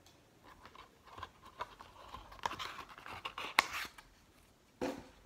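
Packing paper rustling and crinkling as it is pulled out of a leather platform sandal, among scattered clicks and knocks of the sandal being handled on a tabletop. The sharpest crinkle comes about three and a half seconds in.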